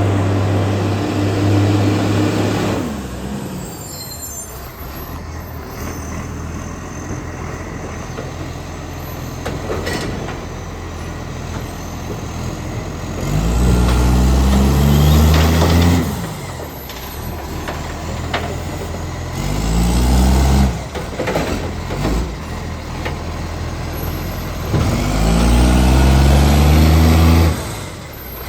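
Diesel engine of an ACCO garbage truck that has an exhaust leak, idling and then revving up and holding high three times for a few seconds each, about halfway through, again a few seconds later, and near the end. There are short air-brake hisses in between.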